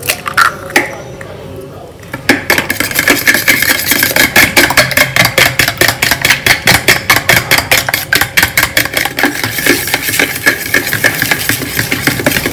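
Raw eggs being beaten with a fork in a plastic bowl: after a few scattered clicks, fast, even strokes of the fork whisking through the egg and tapping the bowl, starting about two seconds in.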